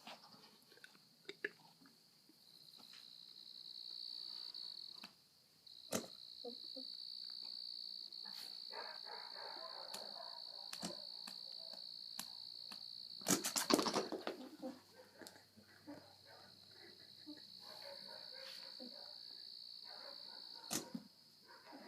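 Steady high-pitched buzz of insects, broken briefly about five seconds in, with a short loud rasping burst about two-thirds of the way through.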